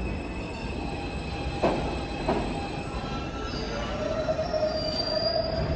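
New York City subway car running on the rails with a steady rumble, two sharp knocks about a second and a half and two seconds in, then metal wheels squealing against the rails for the last couple of seconds.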